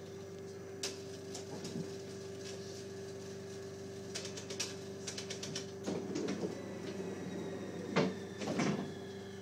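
Regional train interior: a steady electrical hum from the train, with scattered clicks and rattles. The loudest knocks come about six seconds in and twice near the end.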